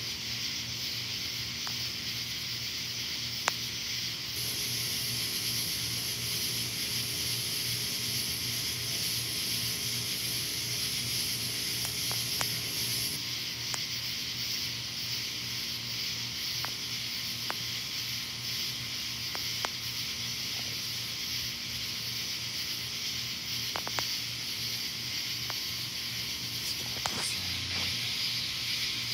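Night insect chorus, likely crickets and katydids: a steady high-pitched buzzing trill, with a higher shrill layer joining about four seconds in and dropping out near thirteen seconds.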